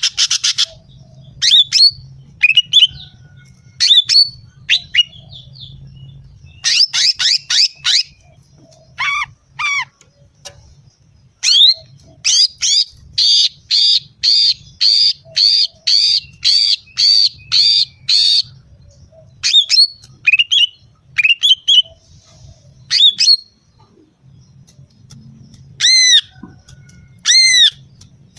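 Female greater green leafbird (cucak ijo) giving loud, sharp, squawky calls in quick clusters. Midway comes a steady run of about a dozen repeated notes, about two a second, and near the end a few arched calls. This is the female call used as a lure to rouse male leafbirds.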